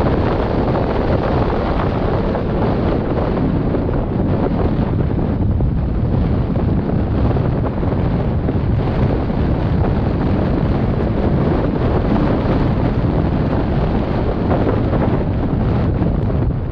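Wind buffeting the camera's microphone: a loud, steady rumble of noise with no break.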